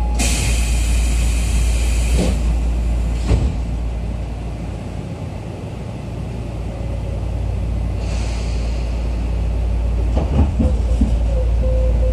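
Interior of a Tobu 10000-series commuter train car standing at a platform: steady low hum of the car's equipment. A hiss of air runs for about two seconds at the start, a thud comes about three seconds in, a weaker hiss follows around eight seconds, and a few clunks come near the end.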